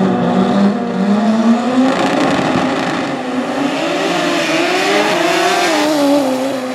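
Turbocharged drag cars, one a Toyota Celica with a 3RZ turbo four-cylinder, revving hard on the start line and then launching down the strip. The engine pitch climbs as they pull away.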